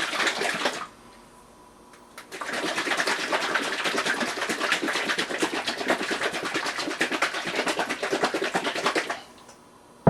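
Dressing shaken hard in a shaker container with a built-in whisk, a fast, even rattle of strokes mixing oil, balsamic vinegar and flax seed. It stops about a second in, then starts again after a short pause and runs until near the end.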